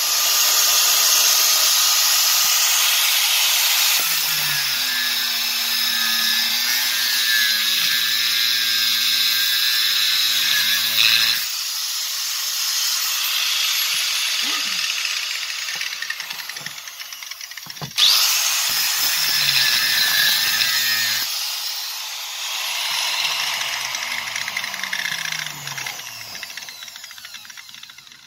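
Angle grinder with an abrasive cut-off disc cutting into the steel of a seized drill chuck. The motor note shifts as it goes under load in several passes, with a sharp knock about 18 seconds in. Near the end it is switched off and the disc spins down.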